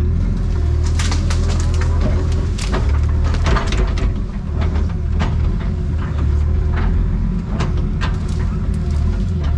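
Excavator's diesel engine running steadily under load, with repeated sharp cracks and snaps of breaking wood as trees and brush are pushed over.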